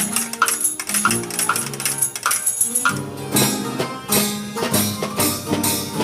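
Repaired orchestrion playing a tune by itself: pitched notes in a melody over a steady beat of percussion strikes.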